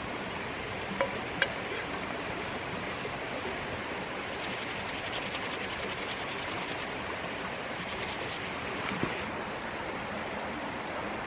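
Steady rushing of a creek's flowing water over stones, with a couple of light clicks about a second in and some faint crackling in the middle.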